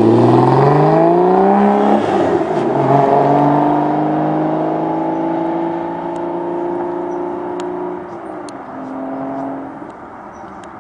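Aston Martin DBS's 6.0-litre V12 accelerating hard, its pitch climbing, dropping at an upshift about two seconds in, then climbing again while the sound fades into the distance. A brief lower engine note near the end before it dies away.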